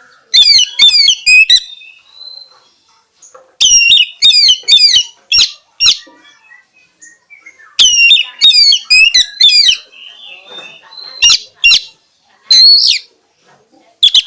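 Oriental magpie-robin (kacer) singing: loud phrases of rapid, repeated sliding whistles, delivered in several bursts a few seconds apart.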